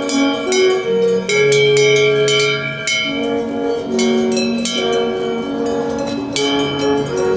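Background music: held notes that change every half second or so, marked by repeated sharp struck accents.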